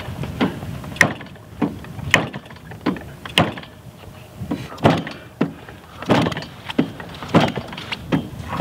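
A 38cc gas engine on a large RC plane being hand-flipped by its propeller for a start, giving a run of sharp knocks about once or twice a second. The engine does not catch.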